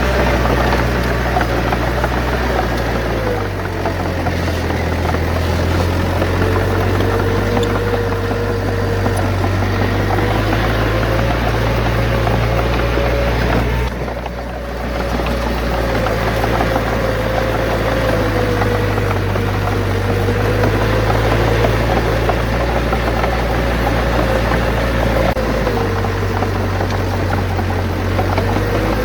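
Heavy diesel engine of earthmoving machinery working steadily, its pitch drifting slightly up and down with load, with a short drop in level about halfway through.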